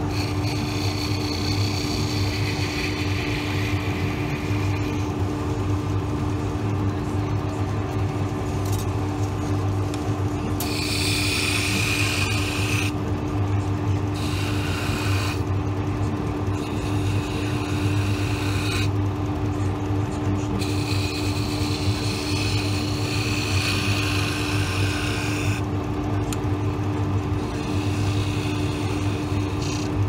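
Wood lathe motor running with a steady hum while hand-held turning chisels cut a small drawer knob spinning in a chuck. The cuts come as several bouts of shaving hiss a few seconds long, with short breaks between them.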